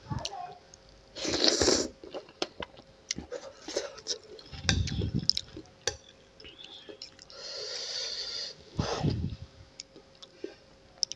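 Close-up eating sounds: a person slurping and chewing instant noodles, with a few noisy slurps or sharp breaths and scattered clicks of a metal fork and spoon against the bowl.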